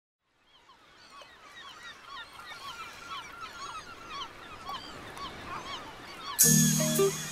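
A flock of birds calling over one another, fading in from silence. Near the end, a swell of music comes in.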